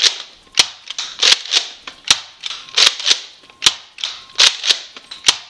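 Nerf Modulus Recon Mk II spring-powered dart blaster being primed and fired in quick succession. Its sharp snaps come about one every 0.8 s, each with the clack and slide of the priming action between shots.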